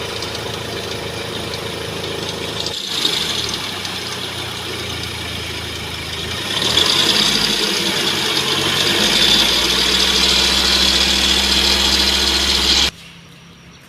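Mahindra XUV500 engine running with noise from the fan belt and its belt tensioner (adjuster). The mechanic puts it down to a worn tensioner that has lost its grip, leaving a dried-out belt loose. The sound grows louder about seven seconds in and cuts off abruptly near the end.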